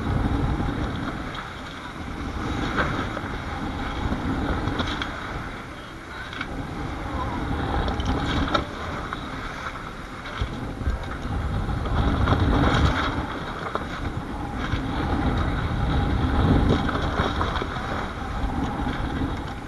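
Wind buffeting the microphone and water rushing along the hull of a sailboat underway in rough seas, swelling and easing every few seconds.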